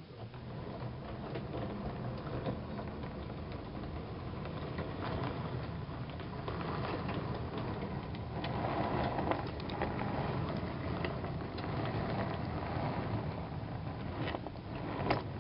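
O gauge three-rail model train running past, its M.T.H. RailKing gear-driven mechanism whirring and the metal wheels clicking over the track, with the sheet-metal coaches on MTH trucks rattling. The sound grows louder as the train comes near.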